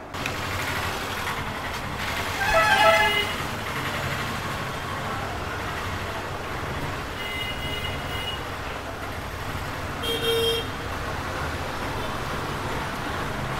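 Steady street traffic with vehicle horns honking: a loud horn blast about two and a half seconds in, and two shorter toots later.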